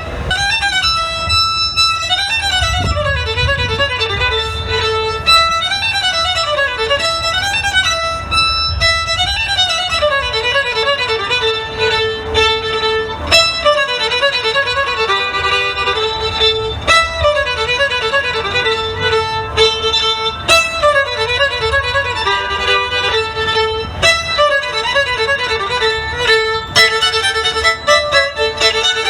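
Violin playing a fast running passage, its notes rippling up and down around a repeatedly returning note, with a low rumble underneath.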